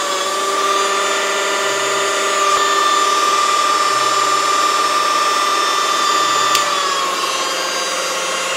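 KitchenAid cordless hand mixer motor whining steadily at maximum speed. About six and a half seconds in there is a click, and the whine drops slightly in pitch as the mixer slows.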